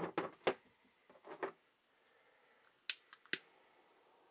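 A few brief handling rustles, then a butane torch lighter's igniter clicking twice, sharply, about three seconds in, followed by the faint steady hiss of its blue jet flame as it lights an incense cone.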